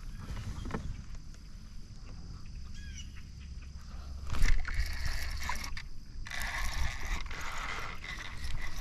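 A sharp swish about four seconds in, then from about six seconds a steady whirring rush as a spinning reel is cranked against a hooked largemouth bass. Faint bird chirps and insect trilling run underneath.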